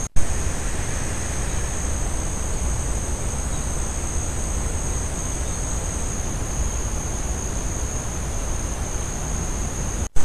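Steady background noise from a trail camera's microphone: a low rumble and hiss under two steady high-pitched whines. The sound cuts out briefly with a click just after the start and again near the end, where one camera clip ends and the next begins.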